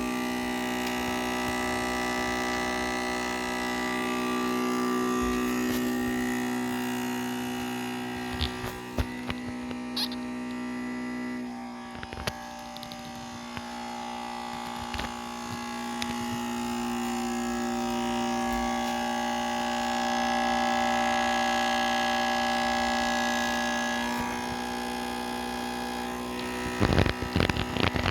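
Acer Predator Orion 3000 desktop PC making a loud, steady buzzing noise made of several steady tones, which shifts slightly about twelve seconds in and again about twenty-four seconds in. A few clicks around eight to ten seconds and a run of knocks near the end.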